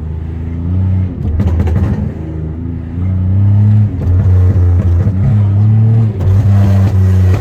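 Pontiac Grand Prix GT's tuned, catless engine accelerating hard, the revs rising and dropping back several times and running louder from about three seconds in.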